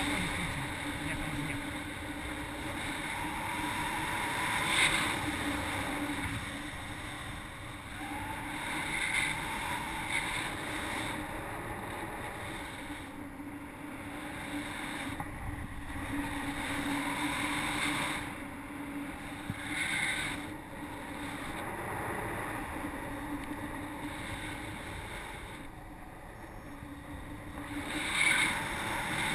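Wind rushing over the microphone of a paraglider pilot's action camera in flight, swelling and easing, with short louder gusts about five seconds in and near the end.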